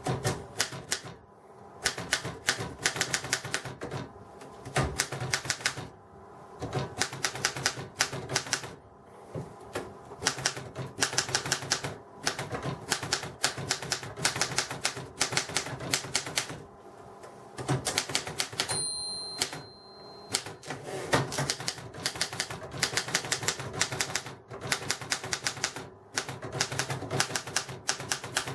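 1959 Erika 10 portable typewriter being typed on: quick runs of keystrikes in bursts, with short pauses every couple of seconds.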